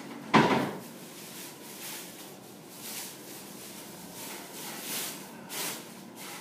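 Handling noise: one sharp thump near the start, then several short, soft swishes as a phone is handled and swiped.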